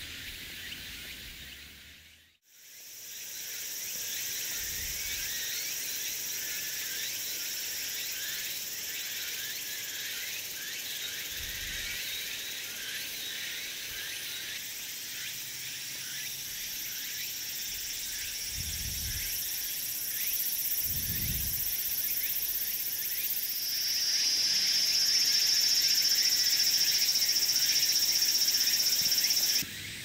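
Dense, steady chorus of insects shrilling high in pitch, in several layers. It fades out briefly about two seconds in and then returns. A louder, shriller insect buzz joins about three-quarters of the way through and cuts off abruptly just before the end.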